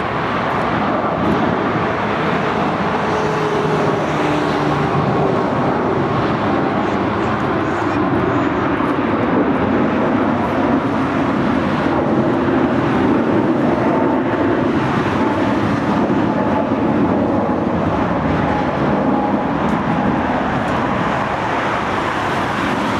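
Twin-engine jet airliner climbing out after takeoff: loud, steady jet engine noise with faint, slowly shifting whining tones.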